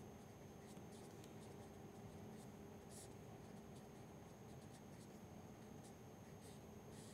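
Faint scratching of a felt-tip marker writing on paper, short strokes at irregular intervals, over a faint steady hum.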